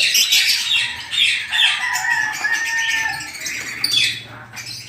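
A flock of caged African lovebirds chattering and screeching in high, overlapping chirps. A single held call sounds for a couple of seconds starting a little over a second in.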